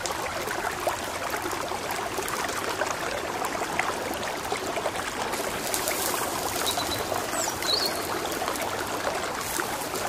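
A river rushing steadily over rocks.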